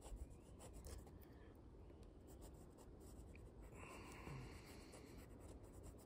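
Faint scratching of a fude-nib fountain pen on sketchbook paper as ink is laid into dark areas, with one longer, clearer stroke about four seconds in.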